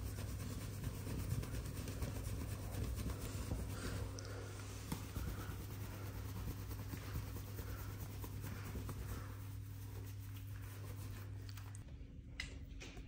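Towel rubbing a cat's wet fur, a continuous rustling and scrubbing, over a steady low hum that stops near the end.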